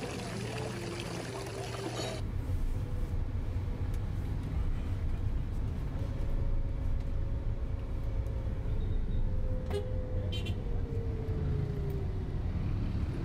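Swimming-pool water sloshing for the first two seconds, then the inside of a moving car: a steady low road and engine rumble with a held engine tone that drops in pitch near the end. A short beep sounds about ten seconds in.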